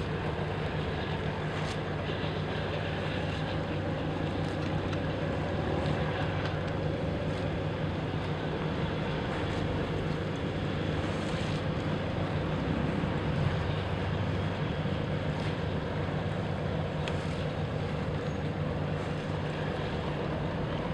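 Steady low drone of a river boat's engine, with a hiss of wind and water beneath it.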